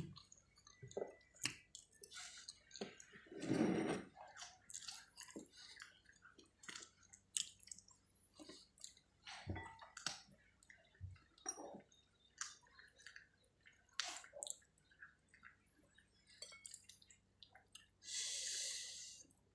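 Wet eating sounds of spicy chicken feet being chewed and sucked: scattered small smacks and clicks of lips and tongue, with a louder slurp about four seconds in and a short hissing suck near the end.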